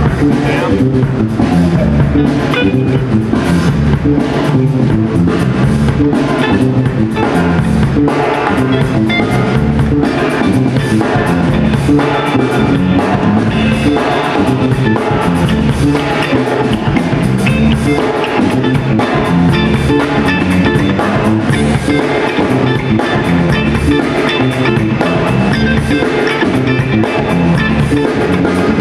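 Live band playing loud instrumental music: drum kit keeping a steady beat under electric bass and electric guitar, with no vocals.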